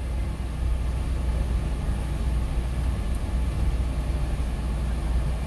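Steady low engine and road rumble inside the cabin of a van while it is being driven.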